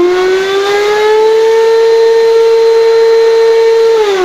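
Rowenta 1700 W vacuum cleaner motor running at maximum speed with a very loud whine. It rises in pitch for about the first second, holds steady, then starts winding down near the end as it is switched off. The noise is excessive, the fault the owner complains of.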